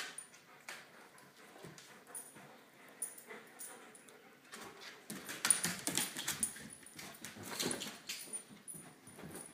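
A Great Pyrenees puppy and a bigger dog playing and chasing: scuffling, knocks and small dog noises, busier and louder from about five seconds in until about eight seconds.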